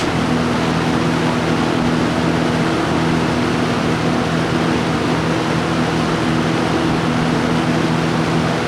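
Lakewood P223 20-inch box fan from 1980 running steadily on its high speed: a loud, even rush of air with a low motor hum.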